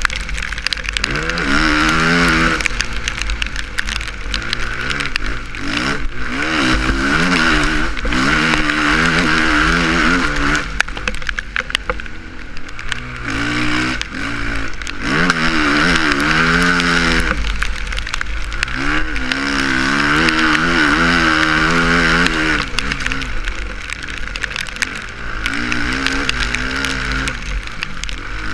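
Suzuki RM-Z450 motocross bike's single-cylinder four-stroke engine, heard from on board, revving up and dropping off again and again as the throttle is opened and closed, over a steady low rumble.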